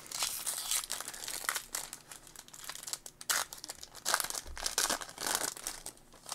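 Foil wrapper of a 2021 Bowman baseball card pack crinkling and tearing open at its crimped seal, in irregular rustling bursts that are loudest from about four to five and a half seconds in.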